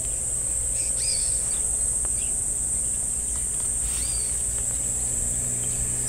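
Steady high-pitched insect chorus, with a few short faint chirps about one, two and four seconds in.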